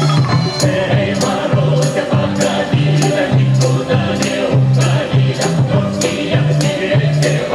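Upbeat music with a steady beat: a repeating bass line under singing voices, with a bright, jingling percussion strike on every beat, about one and a half a second.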